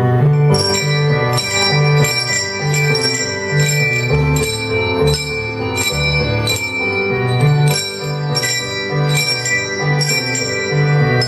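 Handbells played as a group, a tune of struck notes at about two a second, each note ringing on over lower sustained tones.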